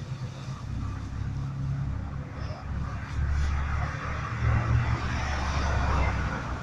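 A steady low rumble, like a running engine or machinery, with a plastic bag rustling in the second half as bread in the bag is handled.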